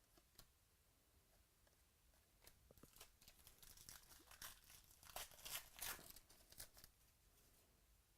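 Faint tearing and crinkling of a trading-card pack wrapper, a run of crackles from about two and a half seconds in to nearly seven seconds, busiest around five to six seconds.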